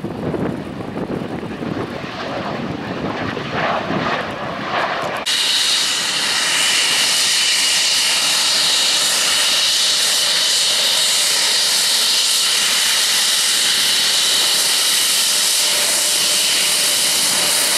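Panavia Tornado's twin RB199 turbofan engines at taxi power. A lower rumble for the first few seconds gives way suddenly, about five seconds in, to a loud, steady high-pitched whine with hiss as the jet taxis close by.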